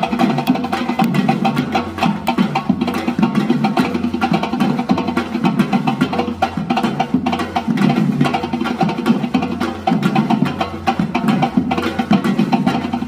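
Live percussion-led music: drums with a dense run of quick, sharp wood-block-like hits over a repeating low bass line.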